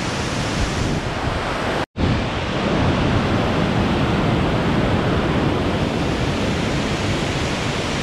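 Steady rushing of a tall waterfall and the rocky cascade of white water below it, broken by a brief dropout about two seconds in.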